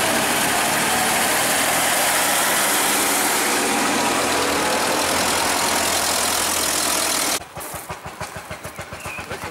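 Engines of vintage tractors running steadily as the tractors drive slowly past. About seven seconds in the engine sound cuts off suddenly and a quieter, rapid, even pulsing takes over.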